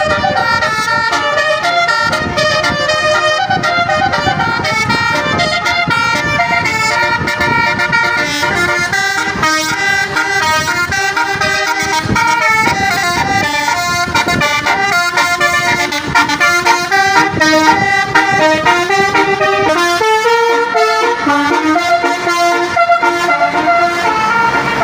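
Tour bus's multi-tone 'telolet' horn (Basuri musical horn) playing a long melody of stepped notes, over the rumble of the bus.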